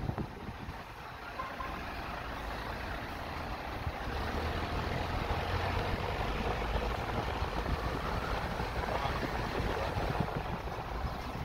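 Steady outdoor rumble and hiss, getting a little louder about four seconds in.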